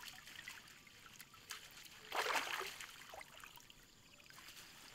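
Water splashing and sloshing as hands work a mesh net fish trap in shallow muddy water, with one louder splash about two seconds in.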